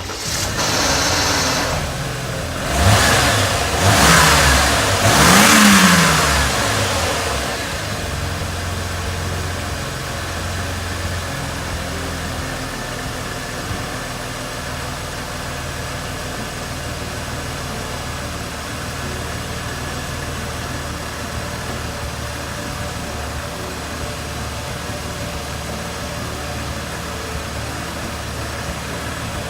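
Mercedes-Benz 300E 3.0-litre straight-six engine running again after its crank-no-start repair. It is revved three times in quick succession, then settles to a steady idle.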